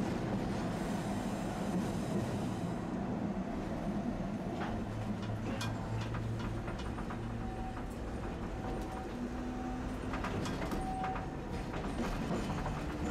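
Tosaden streetcar running, heard from inside the driver's cab: a steady rumble of wheels on the rails, with a handful of sharp clicks about halfway through and again near the end.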